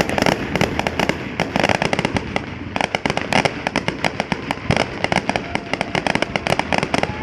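Fireworks and firecrackers going off in a dense, continuous barrage: many sharp bangs and crackles every second, with no pause between them.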